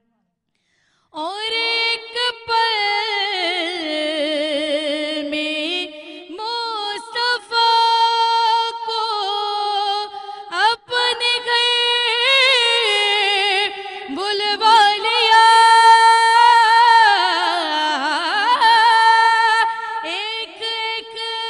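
A woman singing a naat, an Urdu devotional poem in praise of the Prophet, solo into a handheld microphone. She comes in about a second in and holds long notes with heavy vibrato and ornamented runs.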